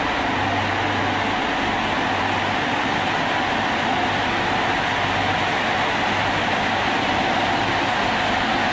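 SNCF Régiolis multiple unit close by, giving a steady, unchanging running hum from its machinery and ventilation.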